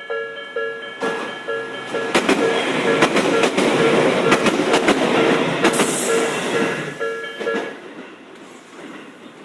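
Japanese level-crossing warning bell ringing about twice a second as a Tobu Isesaki Line electric train passes over the crossing, its wheels clicking over the rail joints. The train noise swells up and fades, and the bell stops about two seconds before the end.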